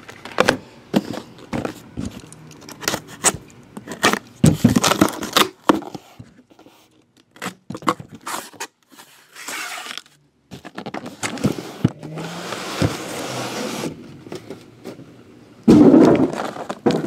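Cardboard shipping case sealed with packing tape being cut open and its flaps pulled apart: irregular sharp clicks and crinkles of tape and cardboard, a long rasping scrape in the middle, and a loud rustle near the end.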